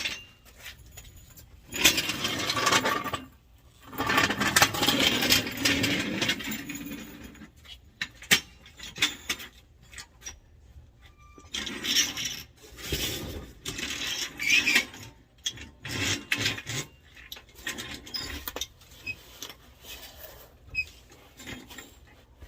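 Metal scraping and rubbing in several rough bursts, with scattered knocks between: the stock steel exhaust being dragged and worked out past the truck's frame as it catches.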